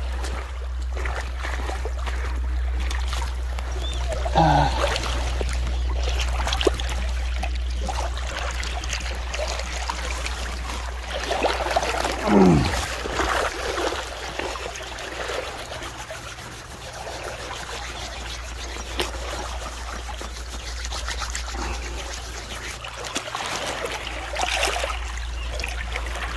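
Shallow lake water lapping and trickling over pebbles and sand at the shoreline. About halfway through, a short sound slides down in pitch.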